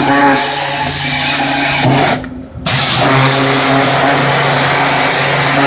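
Landa hot-water pressure washer running steadily, a constant motor tone under the hiss of the 4000 psi spray, with a brief drop-out about two seconds in.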